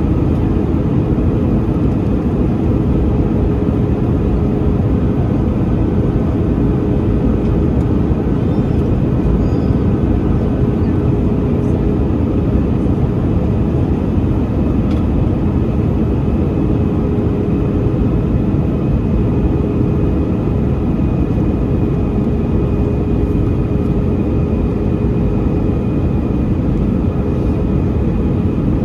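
Cabin noise of an Airbus A320 in flight: a steady, even roar of engine and airflow with a faint constant hum over it.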